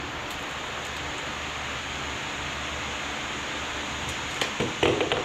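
Steady rushing of electric fans running, with a few short clicks and knocks near the end from a tape measure and plywood sheet being handled.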